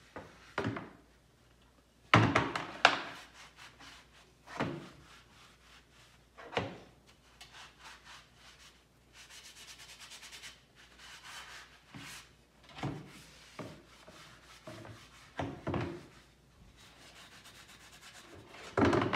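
Stiff brush scrubbing rust off a metal dirt bike exhaust pipe in a plastic tub of water, in bouts of quick rubbing strokes after a soak in rust dissolver. Several knocks and bumps as the pipe is handled against the tub, the loudest about two seconds in.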